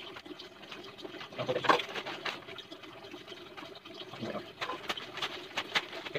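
A plastic courier mailer bag being slit with a box cutter and pulled open by hand: irregular crinkling and rustling of the plastic with scattered small clicks. The loudest rustle comes a second or two in, and the crinkling grows busier near the end.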